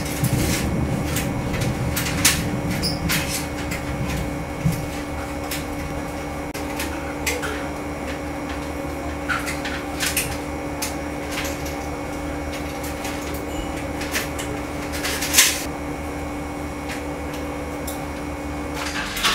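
Light clicks and taps of small tools and a circuit board being handled against a camcorder's metal chassis and a metal tray, at irregular moments, over a steady background hum.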